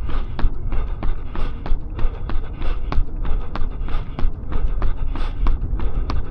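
A runner's footfalls at a steady tempo pace, about three strides a second, picked up by a body-worn action camera, over a steady low rumble.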